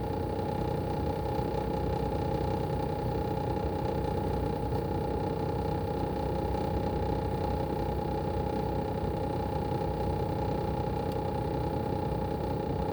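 Daikin ARN22HS mini-split outdoor unit running steadily: its swing rotary compressor gives a constant whine over an even low hum.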